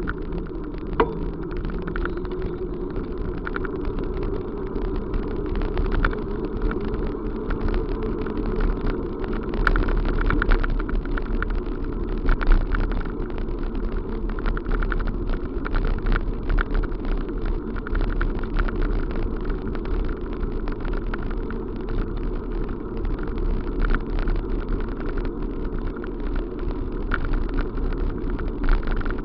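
Steady running noise of a vehicle in motion, with frequent small rattles and clicks over it.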